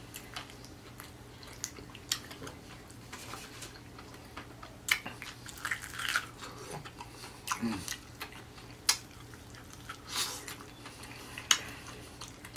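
Chewing and crunching of a breaded fried chicken drumstick, with sharp, irregular crackles of the crust as it is bitten and eaten.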